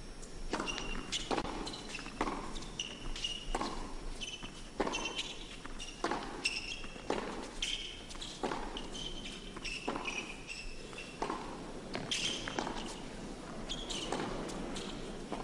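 Tennis rally on an indoor hard court: the ball struck by rackets and bouncing on the court, a steady run of sharp knocks about every half second to a second, with short high squeaks of the players' shoes between them.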